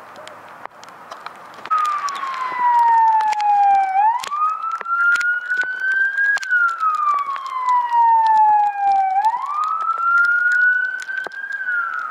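Emergency vehicle siren wailing, starting about two seconds in: one loud tone sliding slowly down and then back up in pitch, about five seconds per cycle. Under it are a steady hiss and scattered sharp ticks.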